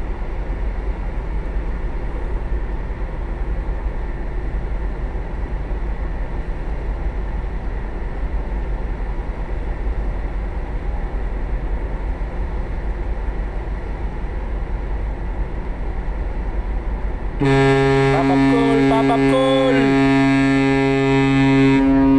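A steady low rumble. About seventeen seconds in, the Trans-Asia 10 ferry's horn sounds a loud, deep, steady blast that holds to the end.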